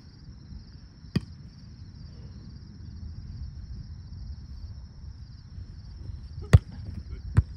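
A volleyball struck by hands three times with sharp smacks: once about a second in, then twice close together near the end, the first of these the loudest. A steady high chirring of insects and a low rumble of wind on the microphone run underneath.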